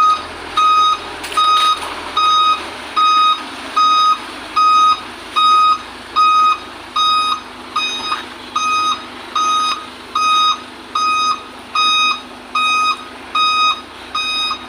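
Concrete mixer truck's reversing alarm beeping steadily as it backs up, a little more than one beep a second.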